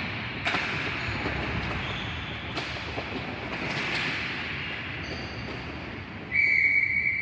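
Play sounds of a ball hockey game: occasional sharp clacks of sticks and ball over a steady hiss of rink noise. About six seconds in, a referee's whistle blows one long, steady, loud blast that stops play.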